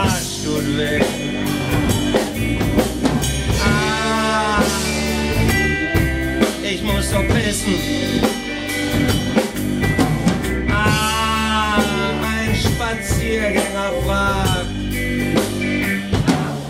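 Live band playing a bluesy rock groove: drum kit, double bass, guitar and keyboard, with a voice holding two long, arching notes. The music breaks off near the end.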